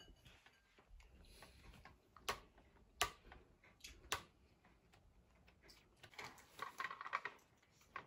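Hard plastic toy pieces clicking and knocking as a child handles a plastic caterpillar toy: several sharp separate clicks, then a short run of quicker rattling near the end.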